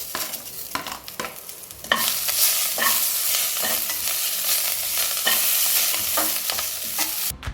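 Curry leaves, coriander leaves and whole spices sizzling in hot oil in a kadai while being stirred, with repeated scrapes and knocks against the pan. The sizzling cuts off abruptly near the end.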